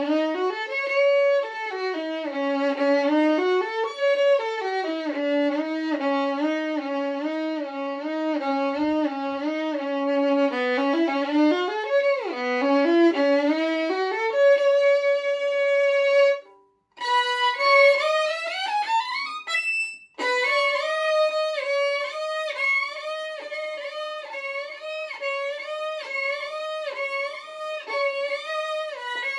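Solo violin playing bowed shifting exercises: notes slide up and down between positions with audible glides between them. About halfway through it stops briefly, then one long slide rises steadily in pitch, followed by quick, closely repeated notes higher up the fingerboard.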